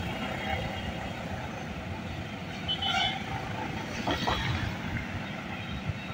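Road traffic on a bridge: motorbikes and cars passing with a steady rumble of engines and tyres, with a brief high tone about three seconds in.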